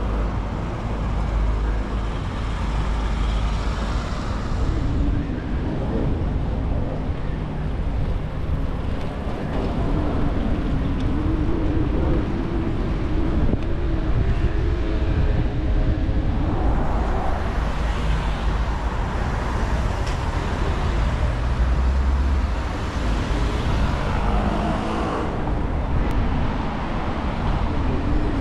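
Wind rumbling on a bicycle-mounted camera's microphone during a ride along city streets, with road traffic and passing cars.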